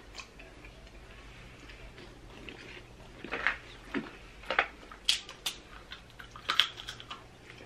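Snow crab legs being cracked and picked apart by hand and eaten: a scattered run of short shell cracks, sucking and chewing sounds that starts about three seconds in, after a quiet stretch.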